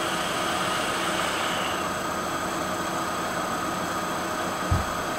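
Steady background hum and hiss with a few faint steady tones, and a single short low thump near the end.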